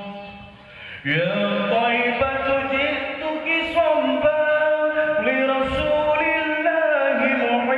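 A single voice chanting in the melismatic style of a Middle Eastern muezzin. After a brief pause, a new line begins about a second in, with long winding ornamented runs that rise and fall in pitch.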